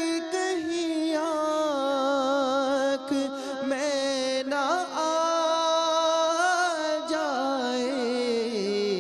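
A man singing an Urdu devotional song into a microphone, in a long wordless stretch of drawn-out notes with wavering ornaments. The melody sinks lower near the end.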